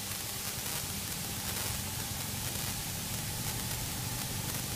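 Cessna's single piston engine running steadily at about 1800 rpm for the pre-takeoff run-up: a constant low drone under an even hiss.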